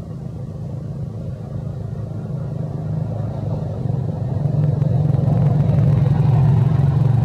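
A low, steady engine hum, growing louder from about halfway in.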